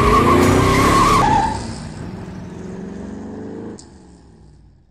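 Sports-car sound effects: a loud, high tyre screech that breaks off after about a second and a half, then a quieter engine rev rising in pitch that stops abruptly near the end and fades away.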